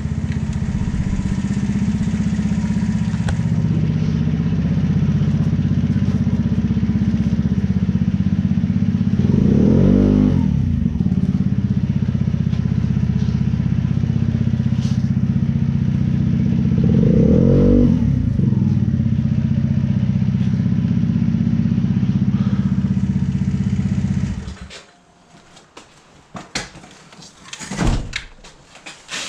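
A small vehicle's engine running with a steady low drone, with two short wavering tones partway through. The engine cuts off suddenly near the end, followed by a few knocks and clatter.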